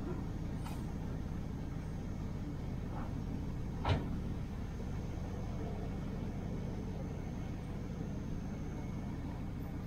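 A 1968 Chevelle Nomad wagon driving, with its engine and road noise making a steady low rumble. There is a single sharp knock about four seconds in.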